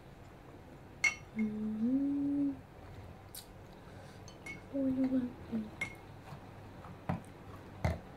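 Scattered clinks and taps of skewers and cutlery against plates and glasses at a meal, with two short hummed "mm" sounds from someone eating, the first rising in pitch about a second in, the second around five seconds in.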